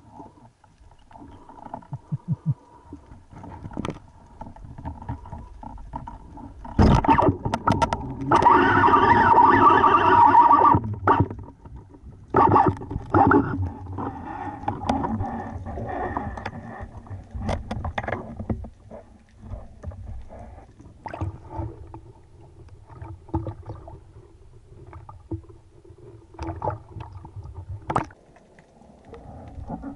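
Underwater sound around a speargun: a murky water rush with scattered knocks and clicks from handling the gun and its shooting line, and a louder rushing noise for about four seconds starting some seven seconds in.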